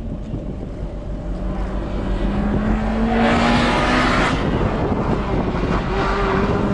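Abarth 124 Spider's 1.4-litre turbocharged four-cylinder idling with a steady low rumble, heard from inside the open cockpit. About three seconds in, a louder rushing noise swells and fades over about a second and a half.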